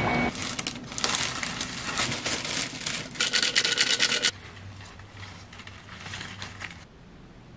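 Crinkling and rustling of cellophane flower wrapping and a paper flower-food packet, loud and crackly for about four seconds. Then a softer rustle as the flowers are handled in a glass vase, which stops near the end.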